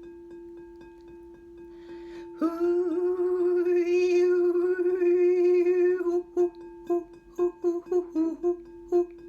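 A steady ringing tone, like a crystal singing bowl, is joined about two and a half seconds in by a woman's voice. She sings a long wordless note at the same pitch, then breaks into short, separate vocal tones while the ringing carries on underneath.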